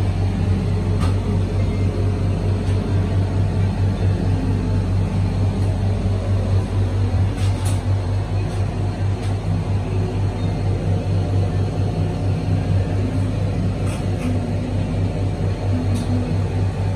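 Steady low mechanical hum with a fast, fluttering pulse, heard inside an enclosed ride gondola. A few faint clicks come through on top.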